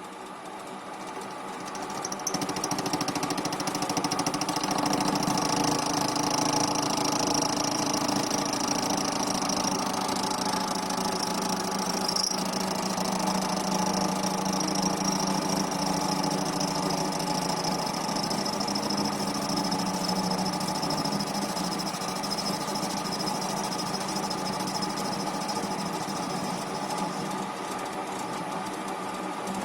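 TV-16 benchtop lathe running with a cutter in the chuck milling across a metal block: a steady machine hum with a high cutting whine that comes in about two seconds in and fades out near the end.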